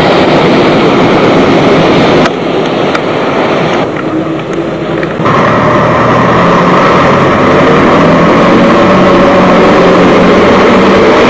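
Diesel railcar running as it comes in along the platform and passes close by: a steady engine drone. The sound drops sharply about two seconds in and comes back just after five seconds.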